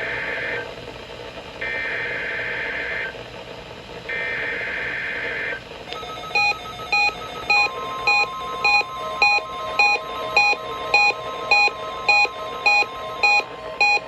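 Emergency Alert System SAME digital header bursts over NOAA Weather Radio: shrill, buzzy data tones in bursts about a second and a half long, the end of one and then two more. From about six seconds in, the Reecom R-1650D weather radio receiver goes off, beeping a little under twice a second, with a steady tone underneath.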